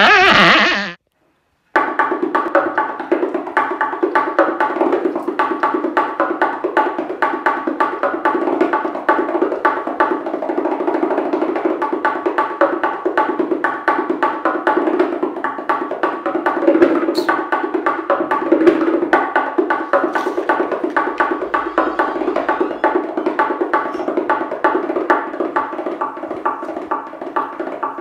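Background music with a fast, steady run of clicking percussion. It starts just under two seconds in, after a brief gap.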